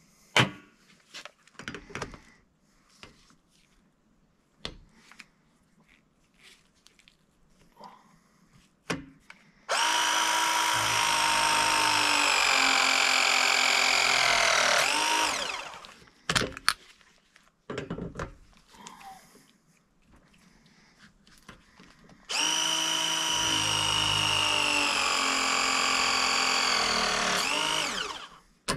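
Battery-powered press tool crimping copper ProPress fittings, two presses of about six seconds each. Each is a steady motor whine whose pitch sinks slightly as the jaws close and ends with a quick dip in pitch as it finishes. Clicks and knocks of handling the tool and pipe come before and between.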